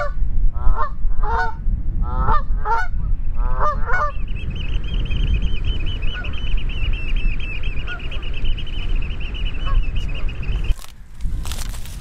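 Canada geese honking, about nine calls in the first four seconds, over wind rumbling on the microphone. After that a steady, high, rapid trill goes on until the sound changes abruptly near the end.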